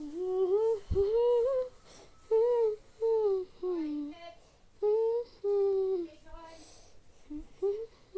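A female voice humming a tune in short, gliding phrases with brief pauses between them.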